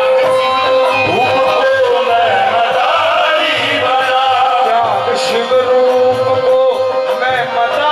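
Devotional bhajan music played live: a man's singing voice over a harmonium's held chords, with tabla keeping a steady beat underneath.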